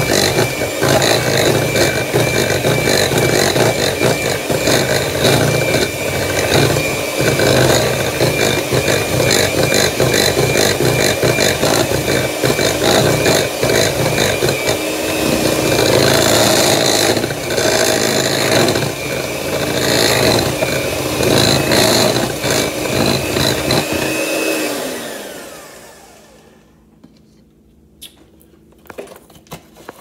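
Electric hand mixer running steadily with a motor whine, beating butter into sugar and flour for a crumb topping. About 25 seconds in it is switched off and the whine falls away as the motor spins down, leaving only a few light clicks.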